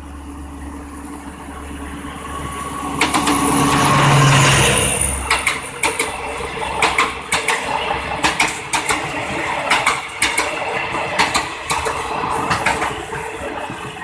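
State Railway of Thailand Alsthom diesel-electric locomotive passing close by, its engine sound growing to a peak about four seconds in. Passenger coaches then roll past, their wheels clacking on the rails in quick pairs, and the sound fades near the end.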